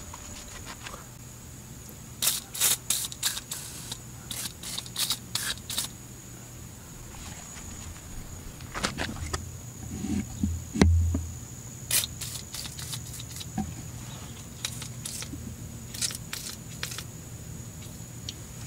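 Scattered sharp clicks and knocks, with a dull thump about eleven seconds in, over a faint steady high whine.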